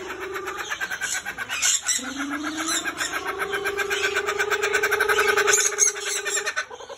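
Laughing kookaburra calling: a fast rattling, chuckling laugh that builds in loudness over several seconds and breaks off near the end.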